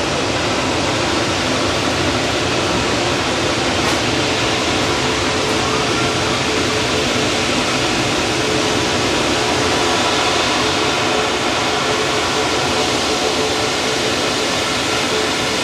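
Jet airliner engines running, a loud steady rushing noise with a faint steady hum that grows a little stronger about ten seconds in.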